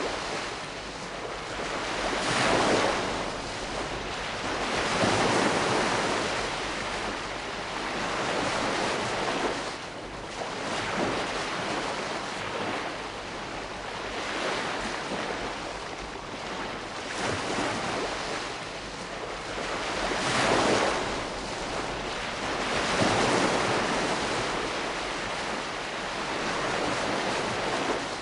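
Calm sea with gentle waves washing in, the surf swelling and ebbing softly every two to three seconds over a steady wash.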